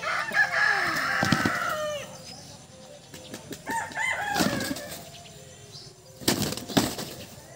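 Roosters squaring off: a rooster crows for about two seconds at the start, a shorter call comes about four seconds in, and near the end there is a loud flurry of wing flapping as the birds clash.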